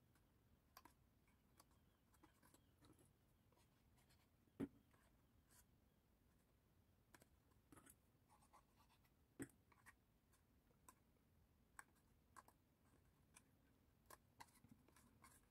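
Near silence with faint, scattered clicks and light rustles of printed card being handled, its glued tabs folded and pressed down by hand.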